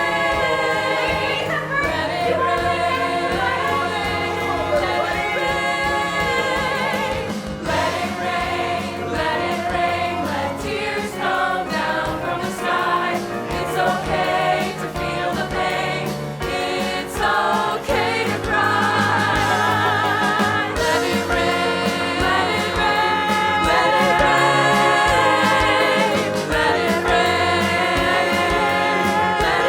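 Voices singing a song together over instrumental accompaniment with a steady beat.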